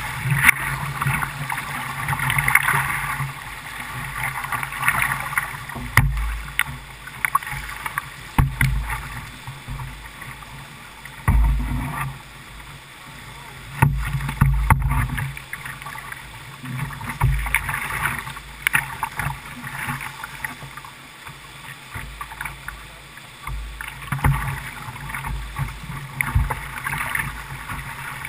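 Whitewater rapids rushing around a kayak, heard through a GoPro. The rush swells and falls back as the boat rides through the waves, with low rumbling thumps on the microphone and a few sharp splashes or knocks.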